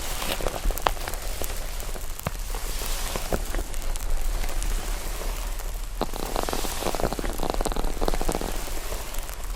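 Slime with foam being pressed and folded by hand, giving a dense, continuous run of small crackles and pops, with a sharp click about six seconds in and thicker crackling after it.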